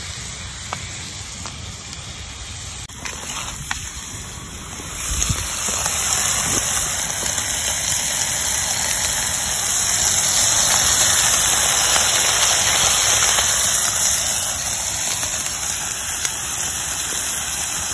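Pork chops sizzling on a wire grill grate over a campfire: a steady hiss that grows louder about five seconds in, with a few sharp pops in the first four seconds.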